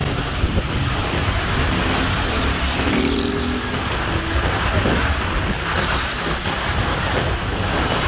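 Heavy wind-driven rain pouring down on a road, with wind buffeting the microphone and road traffic running through the downpour.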